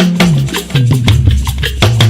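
Upbeat band music: a bass line that steps down in pitch over and over, under steady drum and shaker percussion.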